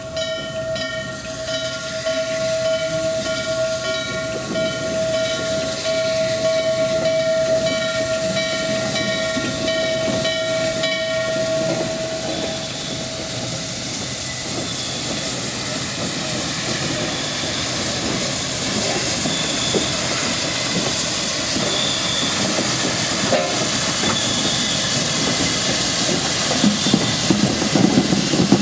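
Norfolk & Western 611 Class J 4-8-4 steam locomotive under way: its bell rings steadily, about two strokes a second, for roughly the first twelve seconds over a steady hiss of steam. Near the end the engine's exhaust and running gear grow louder as the locomotive draws alongside.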